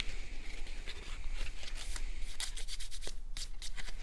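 Cardstock being handled and rubbed by hand: a run of short papery scrapes and rustles.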